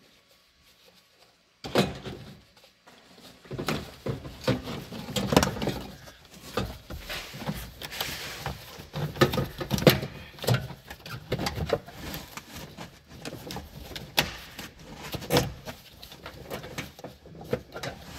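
Hand work refitting the Gen 3 Prius's high-voltage battery cooling blower and its plastic housing: irregular clicks, knocks and scraping of plastic parts, starting a couple of seconds in.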